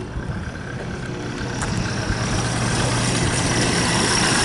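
Ford Model T's four-cylinder engine running as the car drives up the street, growing steadily louder as it approaches.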